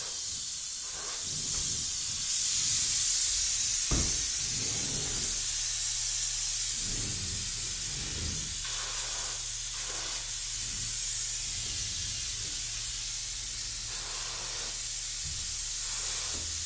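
Electrostatic powder-coating gun spraying high-gloss black powder on compressed air: a steady hiss of air and powder blowing out of the gun.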